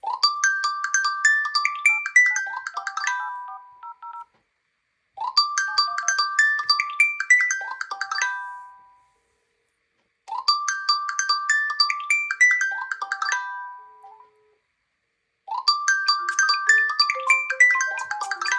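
TamTam messenger incoming-call ringtone: a short melody of quick notes lasting about four seconds, then a pause of about a second, repeated four times.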